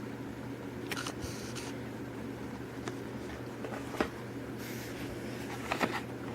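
Light clicks and rustles from a die-cast toy car being handled, over a steady low hum.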